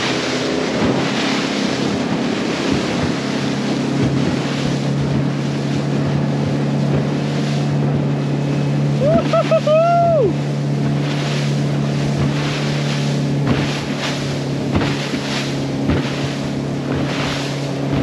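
Small boat's motor running steadily under way, with water rushing past the hull and wind buffeting the microphone. About nine seconds in, a brief high call of a few short rising notes and one held note cuts through.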